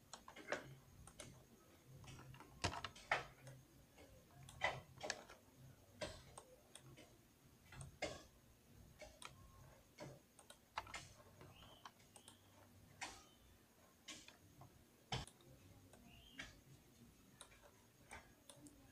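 Faint, irregular clicking of a computer keyboard and mouse as the 3D model is worked on, sometimes two clicks close together.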